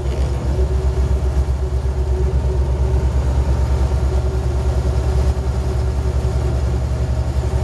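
Peterbilt semi truck's diesel engine running steadily under way, a low, evenly pulsing throb heard inside the cab.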